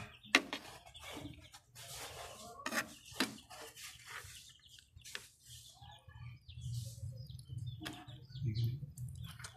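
Knife, fork and metal tongs tapping and scraping on a plastic cutting board and a plate as roast chicken is carved and pulled apart: an irregular string of sharp clicks.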